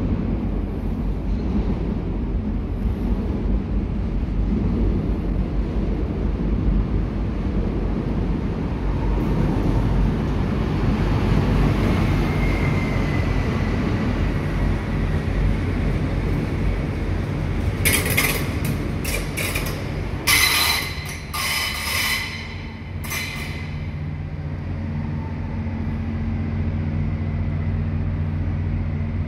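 Renfe Civia electric commuter train running through an enclosed underground station: a continuous rumble of wheels on rail, with a faint squeal partway through. About two-thirds of the way in comes a quick run of sharp clatters, then a low steady hum as the train draws away.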